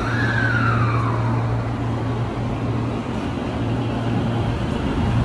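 Tokyo Metro Hanzomon Line electric train pulling away from the platform, with a steady low hum and a falling whine in about the first second.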